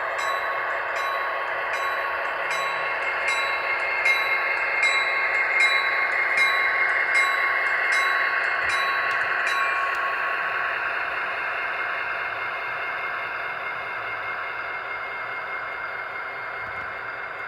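Model GP60 diesel locomotive's DCC sound decoder playing a diesel engine rumble through its small onboard speaker, with a bell ringing about once every three-quarters of a second until it stops about ten seconds in.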